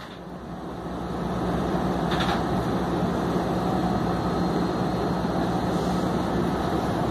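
Yui Rail 1000-series straddle-beam monorail train running, heard from inside the front cab as it pulls away from a station: the running noise builds over the first couple of seconds, then holds as a steady hum with a low drone.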